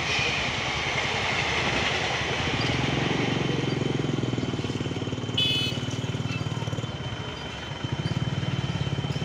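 The tail of a passenger train rushes past on the rail bridge for the first two seconds or so. Then a vehicle engine runs close by with a steady low pulse, with a short horn beep about five seconds in.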